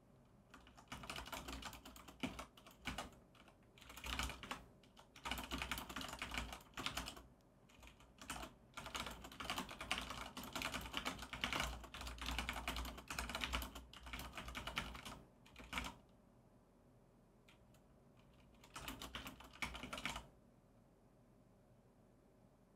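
Typing on a computer keyboard: a long run of rapid keystrokes broken by short pauses, then quiet, then a short flurry of keys about three-quarters of the way through.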